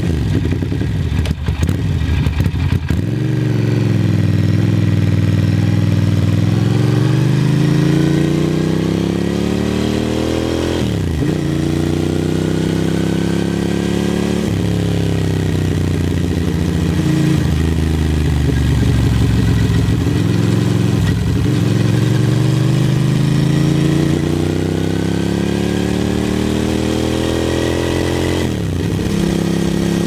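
Ducati 750SS cafe racer's air-cooled V-twin being ridden, engine pitch climbing under acceleration and dropping sharply at gear changes about eleven seconds in and again near the end.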